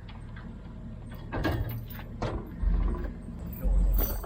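A vehicle engine running low and steady under a series of sharp mechanical clanks and knocks, with two heavy low thuds in the second half.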